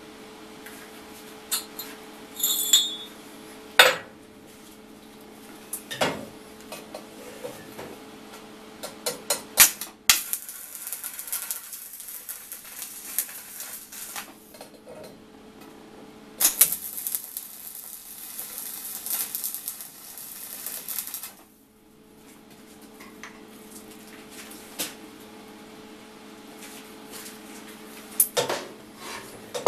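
Stick (arc) welding on steel: the electrode crackles and sizzles in two runs of about four and five seconds near the middle. Sharp metal clanks of steel parts on the steel welding table come before and after, over a steady hum.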